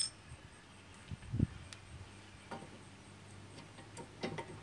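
Faint clicks and light knocks of a brake caliper being handled and seated over the pads and rotor, with a soft low thump about a second and a half in.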